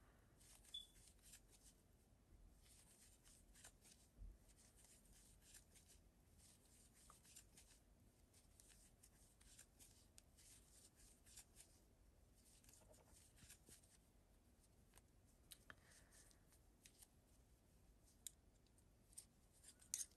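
Faint rustling and light clicking of a crochet hook pulling yarn through single crochet stitches, with a few sharper ticks near the end.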